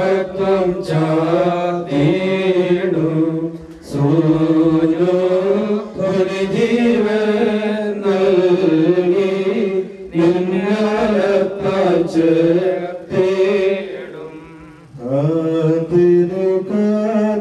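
Voices singing a slow funeral hymn in long, drawn-out phrases that glide up and down in pitch, with brief breaks for breath about 4, 10 and 15 seconds in.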